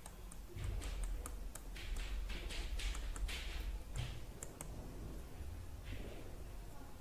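Faint, soft taps and scratches of a stylus on a pen tablet as words are handwritten: a handful of short strokes spread across a few seconds.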